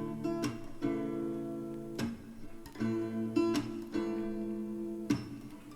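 Background music: acoustic guitar chords ringing out, played between sung lines of a soft pop song.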